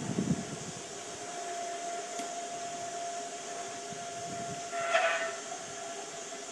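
Steady whine of the electric auxiliary blower on a coal-fired live steam locomotive's stack, drawing the fire while steam pressure is still too low for the steam blower, over a soft hiss. A short, louder sound comes about five seconds in.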